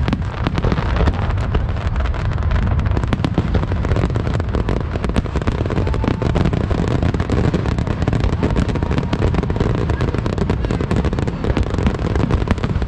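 Aerial firework shells bursting in a dense, unbroken barrage, the bangs coming many times a second and overlapping.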